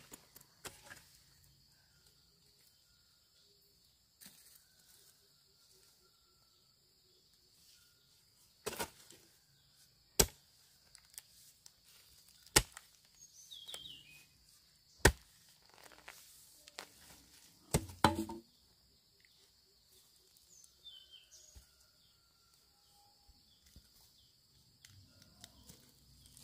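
About five sharp knocks or chops a couple of seconds apart, the last one doubled, over a steady high-pitched insect buzz.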